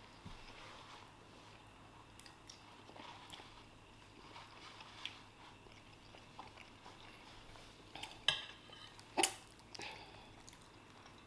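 Quiet mukbang eating sounds: chewing fried rice, with scattered faint clicks and two sharp louder clicks about eight and nine seconds in.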